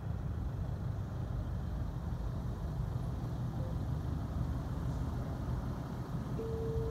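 Steady low rumble of an idling engine, with a short faint steady tone near the end.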